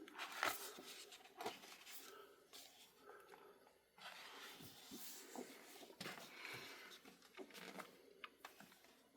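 Faint rustling and soft taps of a large book's paper pages being handled and turned.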